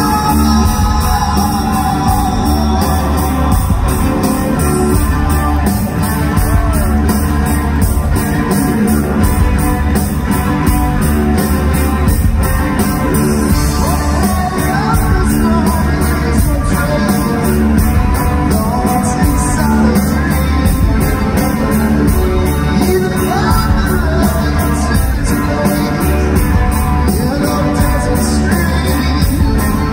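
Live rock band playing loudly with a steady beat: a male singer singing over drums and electric guitar.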